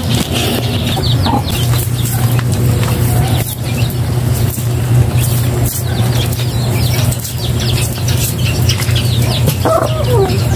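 Steel cleaver chopping pork intestines on a wooden stump chopping block: repeated knocks about once a second, with birds calling in the background.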